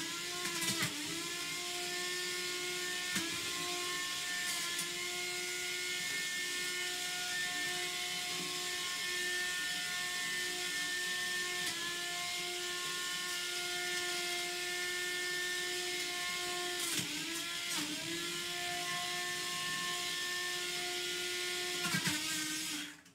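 Antweight combat robot's spinning weapon whining at a steady high pitch. The pitch sags for a moment each time it strikes, with sharp clanks several times. The whine drops away suddenly at the end.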